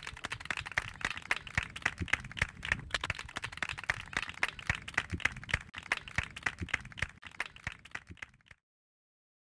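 A rapid, irregular run of sharp clicks, several a second, that cuts off abruptly near the end.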